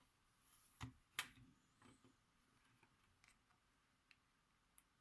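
Faint handling noise with two small sharp clicks about a second in, as a Lightning cable's metal plug is pushed into an iPhone's port, then a few tiny ticks.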